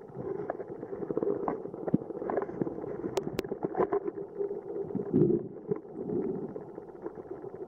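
Muffled underwater sound of moving water, a steady low rush with scattered small clicks and two sharp clicks about three seconds in.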